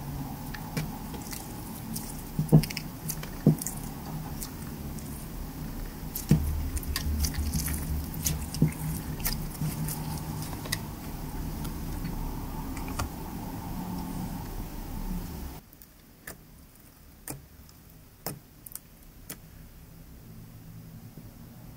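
Clear glitter slime being squeezed and stretched by hand, giving sticky clicks and pops over a low hum. About three-quarters of the way through it cuts to a quieter stretch with fewer, sparser clicks.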